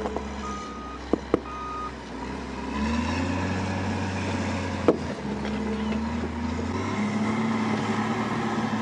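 A heavy landfill vehicle's engine runs steadily while its reversing alarm beeps twice. The engine revs up about three seconds in and holds there. There is a sharp knock about five seconds in.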